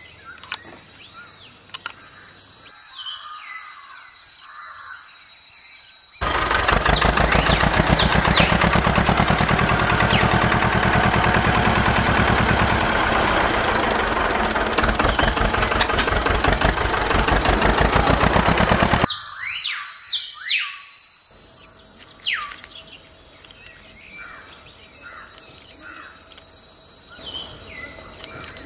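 Birds chirping, then a small motor starts running loud and steady with a fast, even rattle for about thirteen seconds as the mini tractor drives, and cuts off, leaving the birds chirping again.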